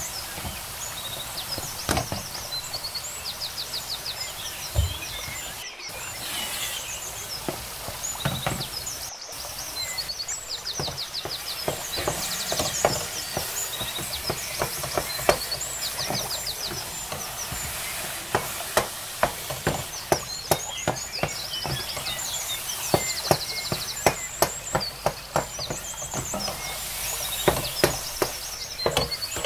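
Wooden spoon stirring thick carrot halwa in an aluminium pot, knocking and scraping against the metal in a run of sharp clicks that come closer together from about halfway. Birds chirping and trilling in the background throughout.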